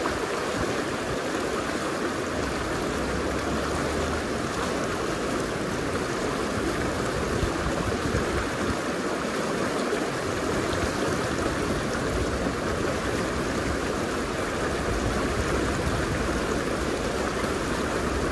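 River current rushing steadily, with gusts of wind rumbling low on the microphone now and then.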